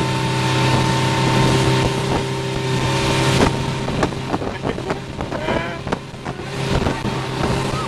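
Motorboat engine running steadily at speed while towing, over the rush of the wake, with wind buffeting the microphone.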